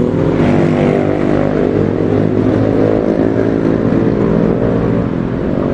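A motor vehicle engine running steadily nearby, a loud even hum with many overtones.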